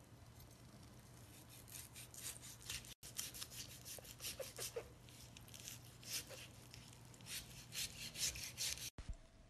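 Chef's knife sawing through boiled beef tendon and shank on a cutting board: a faint run of short slicing strokes, a few a second, starting about two seconds in.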